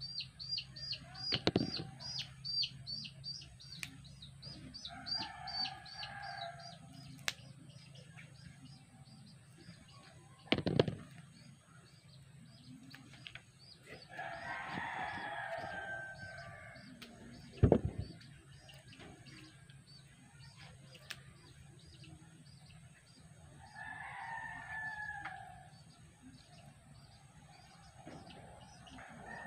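A rooster crowing three times, about ten seconds apart, each crow lasting about two seconds. A small bird chirps rapidly in the first few seconds. A few sharp close knocks, the loudest sounds, come about a second and a half in and twice more later.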